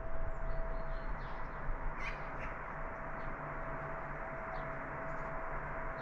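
Outdoor ambience: a steady hiss with a faint constant hum under it, and a few short faint bird calls, one a little sharper about two seconds in.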